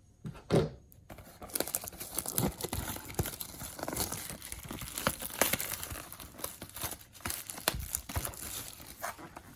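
Plastic shrink wrap on a sealed box of trading cards being torn open and crinkled, a dense run of crackling with small snaps.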